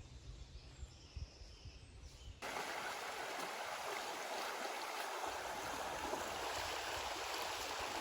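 A stream rushing steadily over stones, cutting in suddenly a couple of seconds in after a quiet stretch with a faint low rumble.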